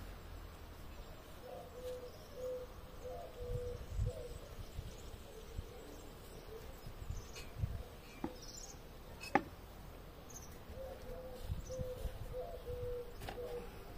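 A wild pigeon cooing in two phrases of repeated low notes, one a couple of seconds in and another near the end. A few soft thumps come through, and one sharp click a little past the middle.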